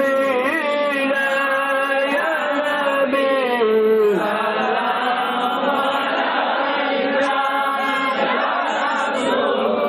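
Islamic devotional chanting: a voice holding long, drawn-out notes that slide and waver in pitch, without a break.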